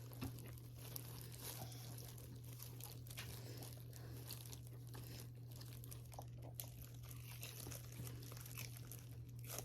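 Faint eating sounds: a paper wrapper crinkling and scattered small clicks and crunches, over a steady low hum.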